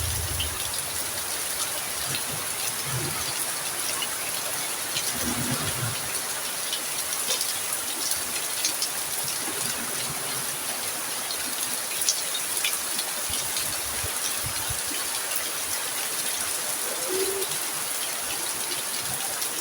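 Heavy rain falling steadily, a continuous hiss with many drops ticking on surfaces. Near the end there are a couple of faint, low, short calls.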